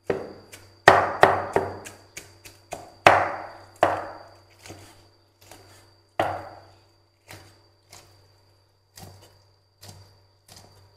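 Large kitchen knife chopping boiled pork on a round chopping board: a run of uneven chops, heavy blows in the first seven seconds or so, then lighter, spaced cuts.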